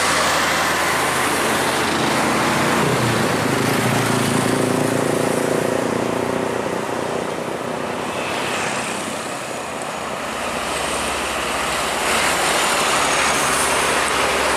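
Heavy diesel trucks passing close on a highway: a dump truck's engine and tyres, easing off a little past the middle, then a tanker truck growing louder as it comes past near the end.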